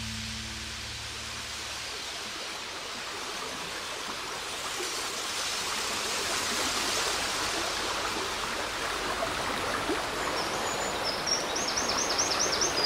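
Rushing water of a woodland river, a steady hiss that swells over the first few seconds. Near the end a bird sings a quick run of about six short, high, rising notes.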